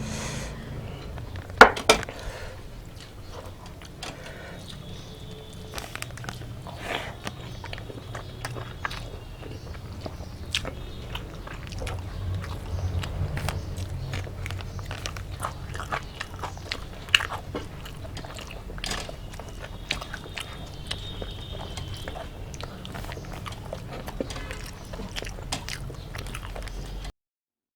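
Close-up eating: chewing and biting food, with many small scattered clicks and taps and two sharper knocks about a second and a half in. The sound cuts out briefly near the end.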